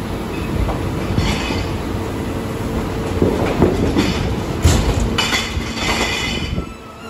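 Mack rear-loader garbage truck with a Leach body running with a steady hum while waste is loaded and crushed in its hopper. High metallic squeals and scraping come from the hopper about a second in and again through the second half, then the noise drops off sharply just before the end.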